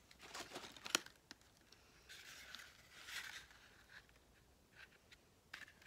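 Faint rustling of paper craft pieces and gift wrapping being handled in a box, with a few light clicks in the first second.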